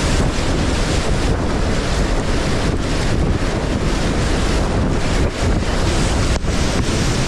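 Loud, steady rush of whitewater heard up close from a kayak running a rapid, with splashing as the bow punches through foaming waves.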